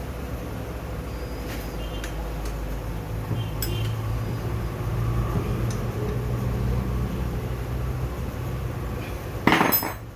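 Metal turbocharger parts and tools clinking lightly as they are handled, with a louder metallic clank near the end, over a steady low hum.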